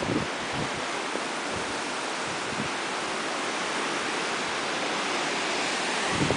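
Steady, even outdoor hiss with no distinct events, like wind.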